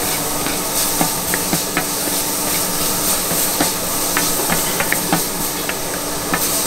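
Food sizzling on a hot street-stall griddle: a steady hiss with scattered sharp clicks and pops.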